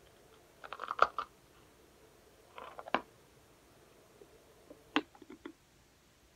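Bites and crunching of a block of freeze-dried mint chocolate chip ice cream: three short bursts of crisp crackly clicks, about two seconds apart.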